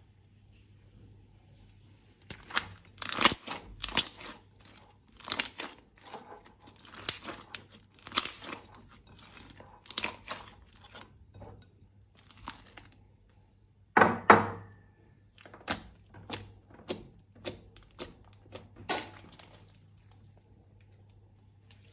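Thin plastic crinkling and crackling as it is handled, in irregular bursts about a second apart, with one louder crackle about fourteen seconds in.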